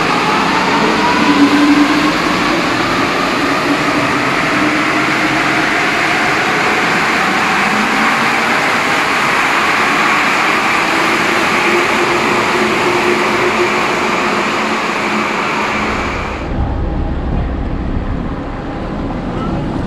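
Alstom NS-16 rubber-tyred metro train running, a loud steady rush with whining tones that slowly shift in pitch. About sixteen seconds in, the high part of the sound cuts off suddenly, leaving a low rumble.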